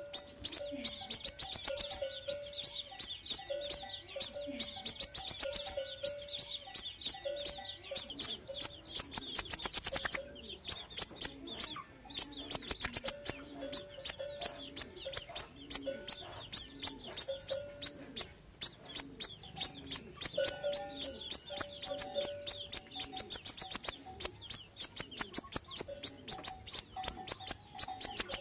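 Sunbird song played as a lure call: rapid, continuous trains of thin, very high chips and trills, with brief gaps. Underneath runs a lower, short, repeated note.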